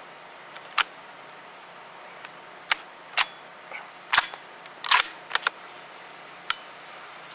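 A run of about eight sharp clicks and knocks, unevenly spaced, with the loudest a close cluster around the middle, from gear being handled.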